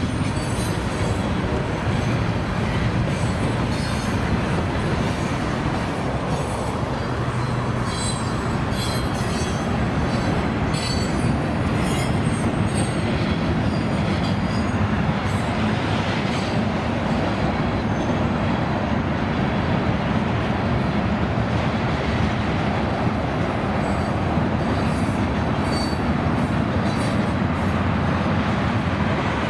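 Freight train of boxcars and tank cars rolling steadily past: a constant rumble of wheels on rail, with short high wheel squeals now and then.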